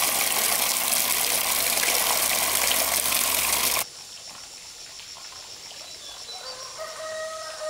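Water gushing from the open end of a black plastic pipe and splashing into a concrete fish pond, loud and steady, cutting off suddenly about four seconds in. After it comes a much quieter outdoor background with a fast, steady high-pitched pulsing, and near the end a held tone with overtones.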